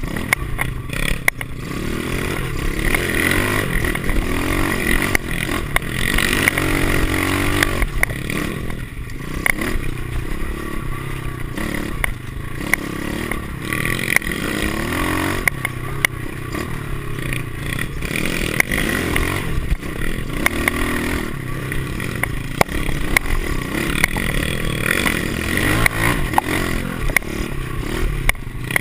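Four-stroke single-cylinder pit bike engine revving up and down over and over as it is ridden along a bumpy dirt trail, with frequent sharp rattles and knocks from the bike jolting over the ground.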